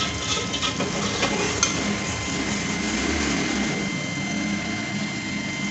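Metal ladle stirring a simmering chicken stew in an aluminium pot, with a few sharp clinks and scrapes of the ladle against the pot in the first two seconds, over a steady background hum.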